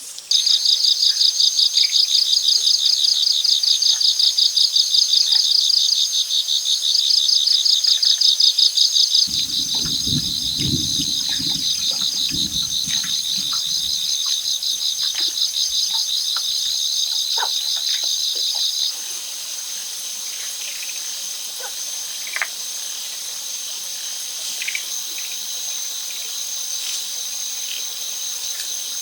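Insects calling loudly in a rapid, pulsing high-pitched trill that cuts off abruptly about two-thirds of the way through, leaving a quieter, steadier high insect chorus. A low rumbling sound runs for a few seconds in the middle, with faint scattered clicks.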